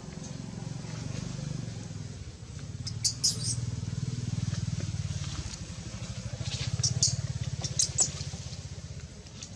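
A motor running, a steady low drone with an even pulse, and a few short high-pitched squeaks about three, seven and eight seconds in.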